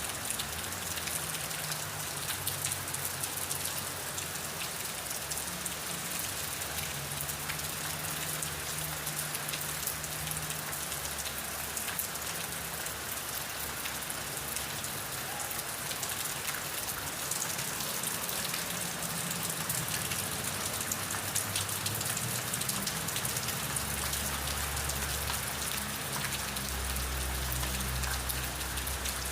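Steady rain falling and pattering on surfaces, with many small drop clicks.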